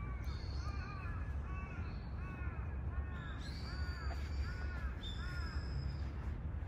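A crow cawing over and over in a steady series, about two caws a second, stopping near the end. A few higher thin notes and a low rumble run underneath.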